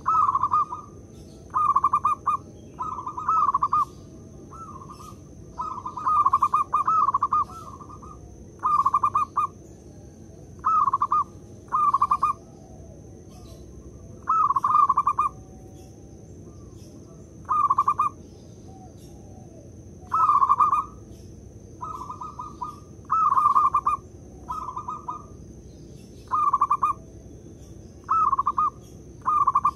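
Zebra dove (perkutut) singing: short, rapidly pulsed coo phrases repeated at irregular intervals of one to three seconds.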